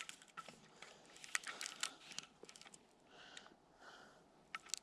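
Faint rustling and scattered small clicks of harness straps and buckles being handled and tightened.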